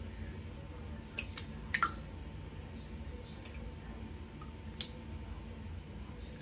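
A handful of short, sharp clicks over a steady low room hum: several between about one and two seconds in, and one more near five seconds.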